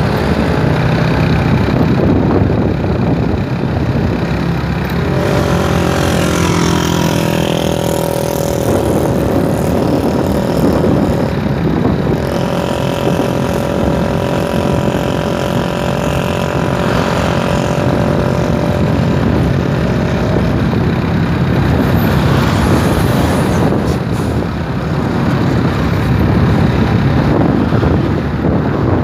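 A motorcycle engine running while riding at road speed, with wind rushing over the microphone. The engine note rises and falls with the throttle.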